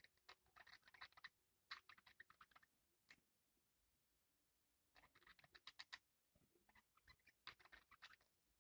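Pet bird's beak nibbling and chewing, heard as faint, rapid clicking in short bursts, with a pause of about two seconds in the middle.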